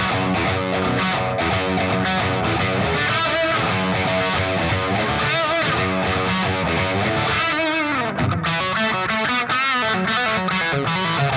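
Overdriven electric guitar played through an MGL50 valve amp head, a copy of a late-70s Marshall JMP 2204 50-watt head in its standard-gain setting, into a slant cab with two Greenback-type speakers, mic'd close. A steady stream of distorted riffs and lead notes, with some notes bent and wavering in the middle.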